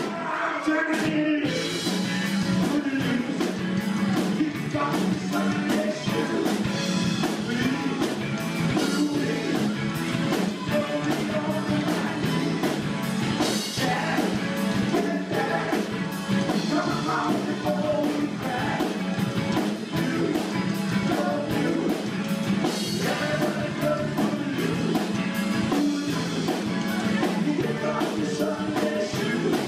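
Live rock band playing: a singer over electric guitars and a drum kit.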